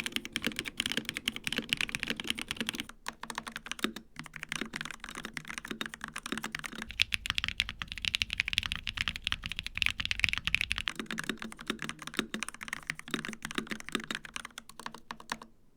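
Fast continuous typing on mechanical keyboards: first a Melgeek Modern97 with Kailh Sonic53 switches, then, from about seven seconds in, a Monsgeek M1 with Akko Piano Black switches. The typing stops just before the end.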